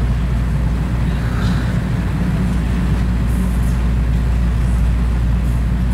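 Loud, steady low hum.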